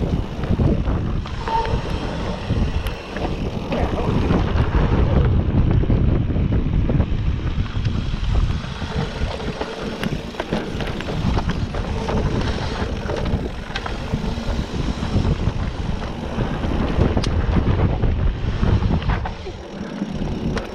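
Wind buffeting the microphone of a camera carried on a moving mountain bike, over a rumble of tyres rolling on dirt trail. Scattered knocks and rattles come from the bike jolting over the ground.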